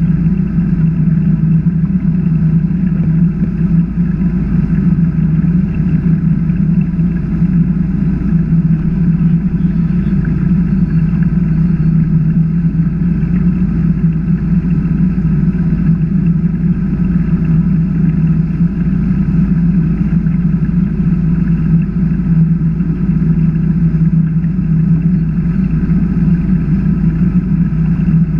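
Steady drone of a 21-foot Chaparral bowrider under way at constant cruising speed, the engine mixed with the rush of water and air at the bow.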